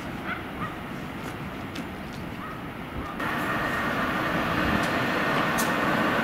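Electric locomotives running on track. First a class 131 twin-unit electric freight locomotive rolls slowly, with a low rumble and a few faint clicks and squeaks from wheels on rails. About three seconds in the sound switches suddenly to a louder, steady run as a class 162 electric locomotive approaches with a passenger train, with a steady high tone over the rumble.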